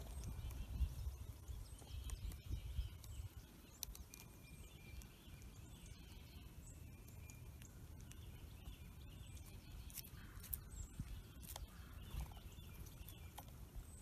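Faint woodland ambience with distant songbirds chirping, a few sharp taps scattered through, and a low rumble in the first three seconds.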